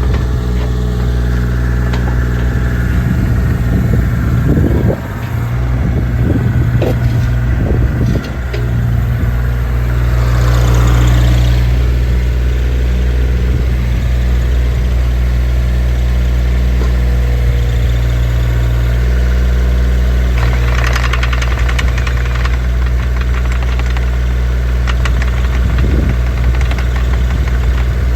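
2015 JCB 8018 mini excavator's diesel engine running steadily, with a run of clunks and knocks in the first third and two brief hissing surges later on.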